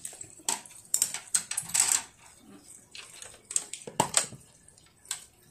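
Irregular sharp clicks and smacks of a small child eating with chopsticks, about ten in a few seconds.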